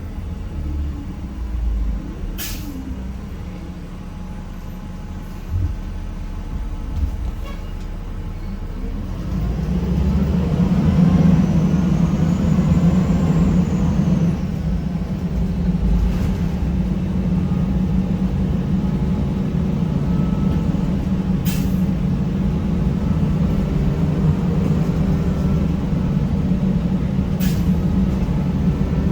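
Gillig Phantom transit bus's Cummins ISM diesel and Allison automatic transmission, heard from inside the bus. It runs quietly at first, then pulls away about a third of the way in with a rising whine, and settles into a steady humming drone. A few brief sharp sounds break in now and then.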